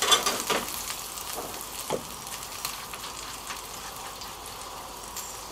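Yellowfin tuna steaks sizzling in hot olive oil in a cast iron skillet: a steady frying sizzle with scattered crackles, and a few sharp ticks in the first second or so.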